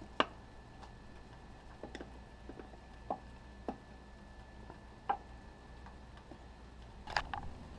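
Scattered small clicks and taps from a screwdriver working loose plastic marker-light lenses and housings on a motorhome's fibreglass rear cap, about one every second or so, with a quick cluster of clicks near the end.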